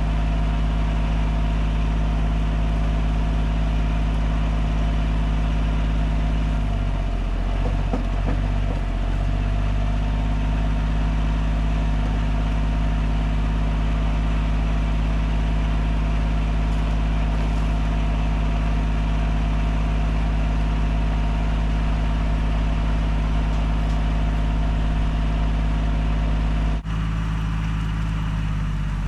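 An engine idling steadily, its pitch unchanging, with a brief wavering about a quarter of the way in and a sudden change in tone near the end.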